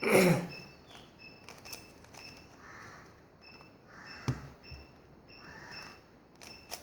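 Plastic Rubik's cube being handled and twisted: scattered clicks and soft swishing turns, with a brief loud rustle right at the start. A cricket chirps steadily in the background.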